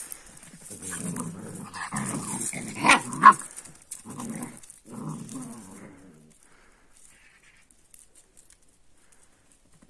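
Kangal puppies growling in rough play, in uneven bursts, with two sharp yaps about three seconds in; the growling stops about six seconds in.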